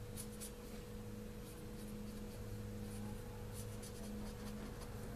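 Felt-tip marker drawn across a PVC pipe in several short strokes, marking an angled cut line, over a steady low electrical hum.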